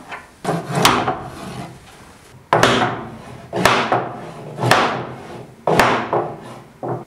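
Mallet knocking a miter saw's bed upward to level it with the bench top: about seven blows, roughly a second apart.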